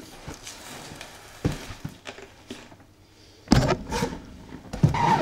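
Handling noise from a large cardboard board-game box being lifted out of a carton of foam packing peanuts: soft rustling and light clicks, then two loud knocks as the box is handled, about three and a half and five seconds in.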